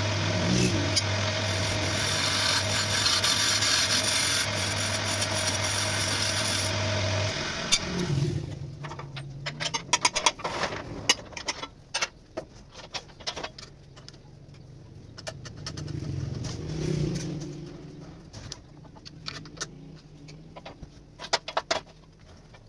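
Electric-motor wood lathe humming while a hand-held turning tool cuts the spinning wooden bowl blank, a steady rasping noise. About seven to eight seconds in, the hum and cutting stop suddenly, leaving scattered clicks and knocks over a faint low hum.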